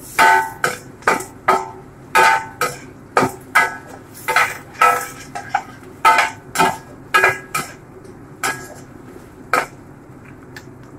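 A metal utensil knocking and clinking against a metal cooking pot, about two ringing knocks a second, irregular. The knocks thin out after about eight seconds.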